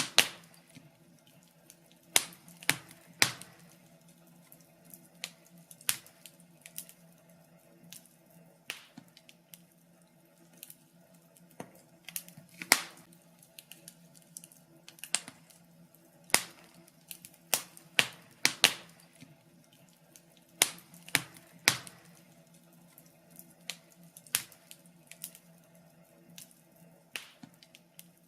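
Wood fire crackling: irregular sharp pops and snaps, a few every couple of seconds, over a faint low steady hum.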